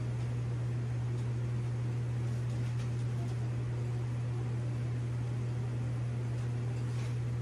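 Steady low hum with a soft hiss over it, like a running kitchen fan or appliance motor, unchanging throughout. A faint tick near the end.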